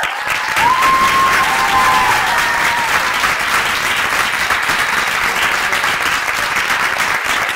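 Audience applauding, starting suddenly and continuing steadily, with a few cheering voices in the first three seconds.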